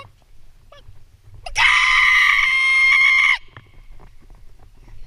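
A man's loud, high-pitched scream imitating a chicken being slaughtered. It is one long shriek held at a steady pitch, starting about a second and a half in and lasting nearly two seconds.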